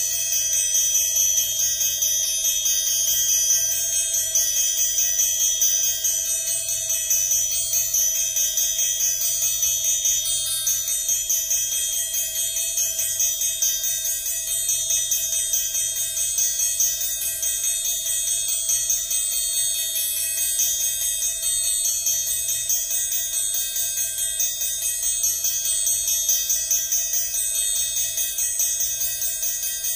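Amplified triangle struck in rapid, even taps with a metal beater while the other hand damps it, giving a shimmering mass of steady high ringing tones.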